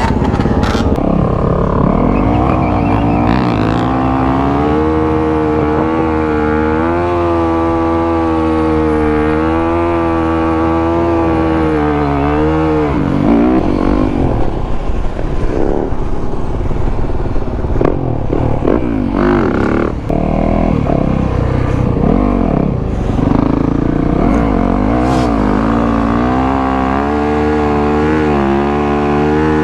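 Dirt bike engines revving and held on the throttle, the pitch wavering up and down for several seconds at a time, with a rougher, broken-up stretch in the middle.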